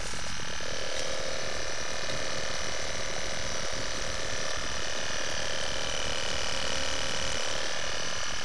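Small battery air pump humming steadily, with air bubbling through the water in a styrofoam cooler of live fish.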